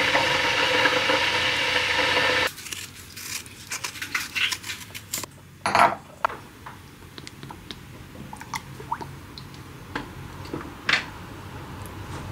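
A loud, steady noise stops sharply about two and a half seconds in. Light clicks and knocks follow as a cream carton and a glass measuring jug are handled on a wooden counter, with one louder knock about six seconds in, when the jug is set down.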